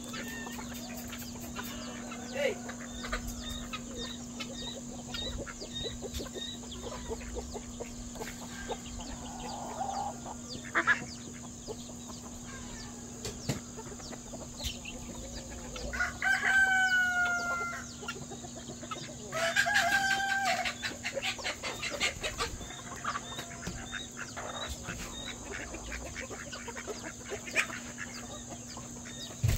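A flock of chickens clucking and calling as they forage, with a rooster crowing twice, loudly, about sixteen and nineteen seconds in, each crow lasting about two seconds.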